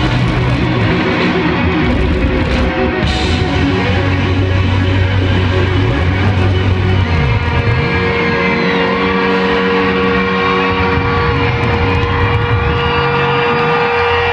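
Live rock band playing loud, with distorted electric guitar; a steady held tone sets in about halfway through and stays under shifting, wavering guitar noise.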